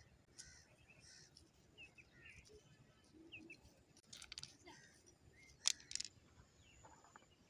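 Faint chirps of small birds over a quiet outdoor background. A few sharp clicks come about four seconds in, and two louder ones come near six seconds.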